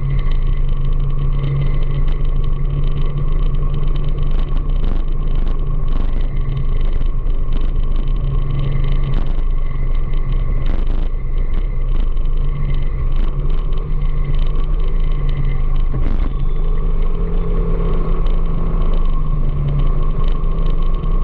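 Engine of the vehicle being ridden, running at a steady cruising speed with small shifts in pitch, under a heavy constant wind rumble on the microphone.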